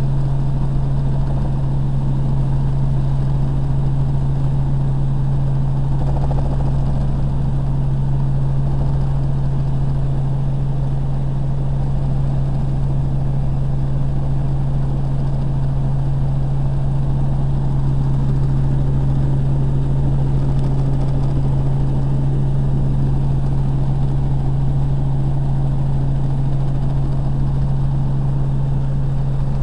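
Helicopter in cruise flight heard from inside the cabin: the engine and rotors make a loud, steady drone with a constant low hum, unchanging throughout.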